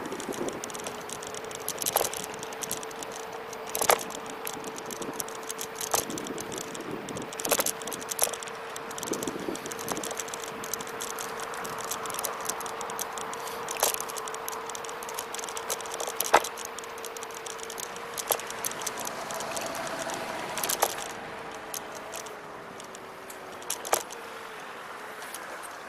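Electric scooter riding on asphalt: a steady motor whine with rattling and sharp clicks from the scooter's frame over bumps. Toward the end the whine drops in pitch as the scooter slows.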